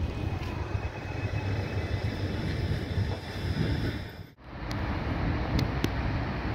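Outdoor ambience of wind rumbling on the microphone, with road traffic in the background; the sound drops out briefly about two-thirds through.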